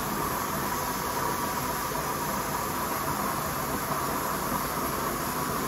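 Dry ice blasting machine's nozzle blasting compressed air and dry ice pellets against a carpet floor mat: a steady hiss with no let-up.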